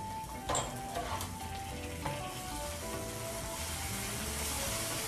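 Green onions and soy sauce sizzling in hot oil in a pan on high heat while being stirred, with a few knocks of the utensil against the pan in the first two seconds. The sizzle grows stronger in the second half.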